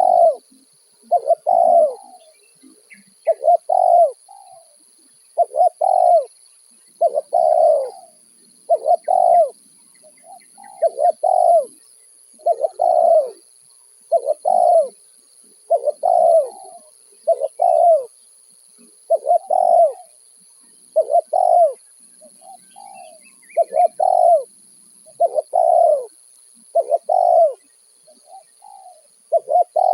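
Spotted dove cooing: a long run of low coo notes, one or two together roughly every one and a half to two seconds, over a steady faint high hiss.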